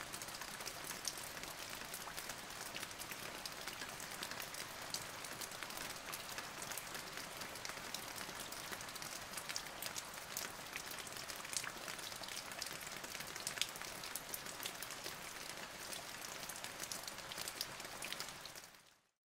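Steady rain falling on a surface, a dense patter of individual drops, fading out near the end.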